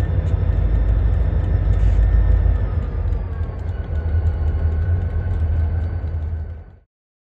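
Freight train's diesel locomotives running as they approach, a deep low rumble with a faint steady whine above it that slides slightly lower about three seconds in. The sound cuts off abruptly near the end.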